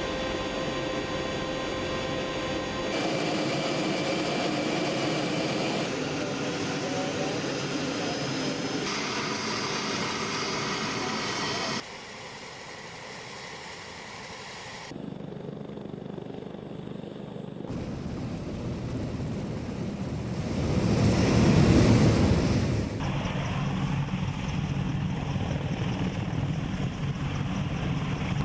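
Military helicopter turbine and rotor noise in a string of short shots, the sound changing abruptly every few seconds. About three-quarters of the way through it swells to a loud, low rush for a couple of seconds before dropping back.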